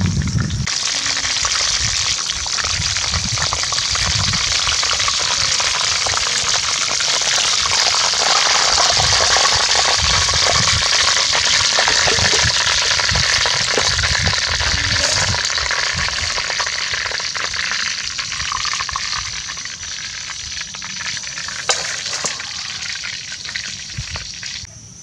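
Hot oil sizzling and crackling as a whole chicken fries in a pan. The sizzle eases off over the last several seconds and cuts off abruptly near the end.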